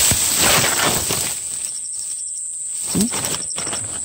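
Dry grass stems rustling and crackling as hands push through them. Under it a steady high insect buzz runs throughout, and from about halfway a rapid, even run of insect pulses is joined by a couple of soft knocks.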